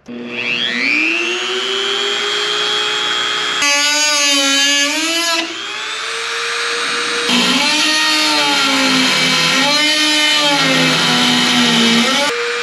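Flexible-shaft Dremel rotary tool with a cutoff wheel: the motor spins up with a rising whine, then the wheel cuts through the rudder's aluminium nose skin. The whine wavers and dips in pitch as the wheel bites into the metal.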